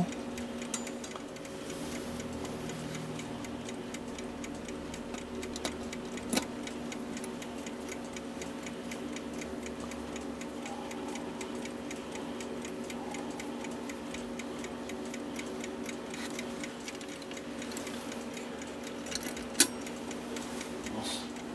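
A clock ticking steadily over a steady hum. Two sharp clicks come about six seconds in and near the end, while a screwdriver works a screw in the brass clock movement.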